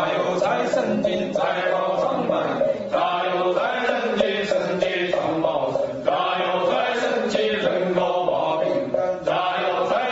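Chinese ritual chanting for a rite of deliverance of the dead, sung in phrases with short breaks between them, with some musical backing.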